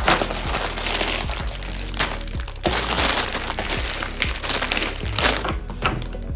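Packaging of a LEGO set crinkling and rustling as it is handled and opened, in irregular loud bursts, over background music.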